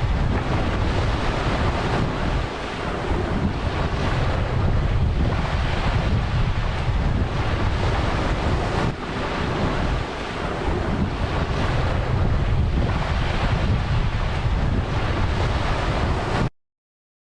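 Sea waves surging and breaking, a dense continuous wash with a heavy low rumble and wind buffeting the microphone. It cuts off suddenly about a second before the end.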